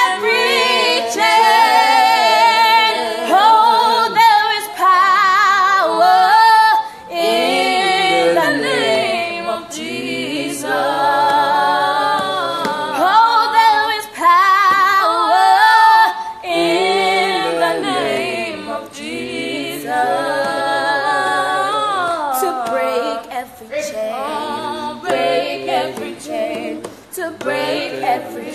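Unaccompanied group singing of a worship song, a woman's voice in front with wavering, sliding notes.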